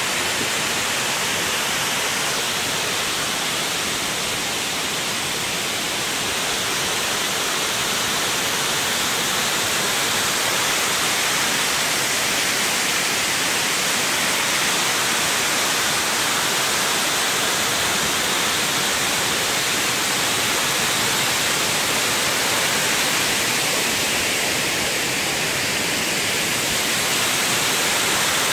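Water overflowing Derwent Dam, pouring down the stepped stone face of the dam in a steady, unbroken rush of falling white water.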